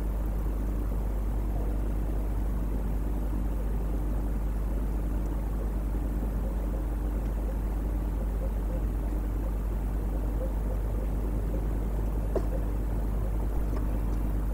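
Steady low hum and hiss from a webcam's microphone, with a faint buzzing tone that comes and goes in short dashes. There is a single sharp click about twelve seconds in.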